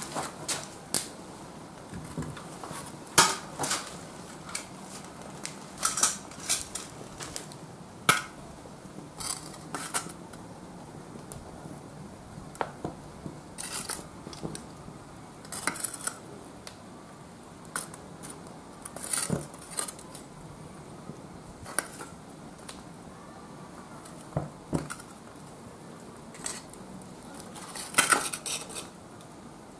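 Metal tongs clinking and scraping against lumps of oga-binchotan charcoal inside a foil-wrapped metal chimney, in scattered sharp clinks every second or two, loudest about three seconds in and near the end.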